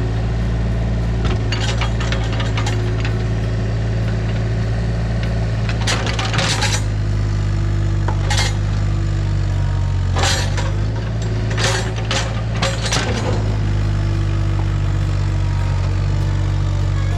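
Compact earth-moving machine's engine running steadily under work, with sharp metallic clanks and knocks every few seconds as it digs and shifts rock.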